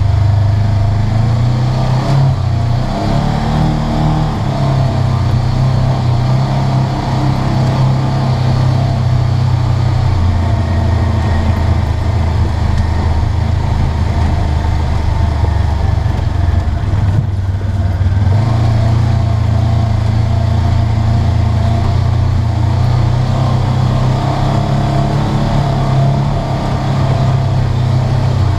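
Polaris RZR 900S side-by-side's 875 cc twin-cylinder engine running steadily as it drives along a dirt trail, heard from inside the cab; the engine eases off briefly about two-thirds of the way through and then picks back up.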